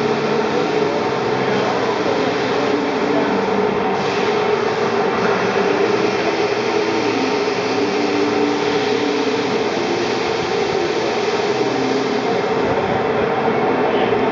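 A large lathe's motorised turret tool post indexing round to a new station. It runs as a steady mechanical hum with a constant tone.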